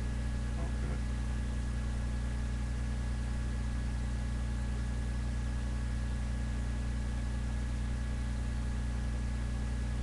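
Steady low hum with hiss and a faint high-pitched whine, unchanging throughout.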